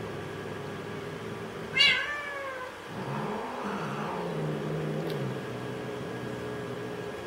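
Domestic cats facing off: one loud meow that falls in pitch about two seconds in, then a low, wavering, drawn-out yowl for a couple of seconds.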